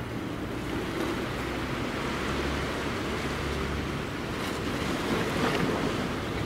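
Steady wash of sea waves against the breakwater, with wind buffeting the microphone.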